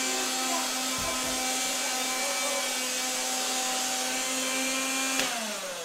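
Handheld vacuum cleaner running with a steady whine and hiss, switched off about five seconds in, its motor winding down with falling pitch.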